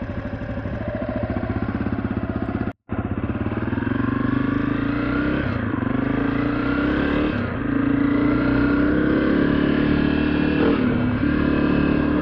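A 2023 Honda CRF250F's air-cooled single-cylinder four-stroke engine on the move: it pulses at low revs at first, then cuts out for an instant about three seconds in. After that it pulls louder, its pitch rising and falling as the bike accelerates and shifts.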